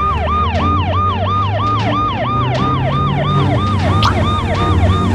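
Police car siren in a fast yelp, its pitch swooping down and back up about three times a second, over a low steady rumble.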